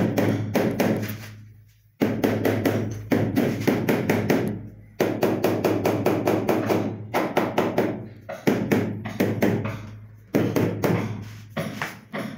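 Rubber mallet tapping the face of a large ceramic wall tile to seat it in place: quick runs of rapid taps, each run starting loud and fading, repeated about eight times.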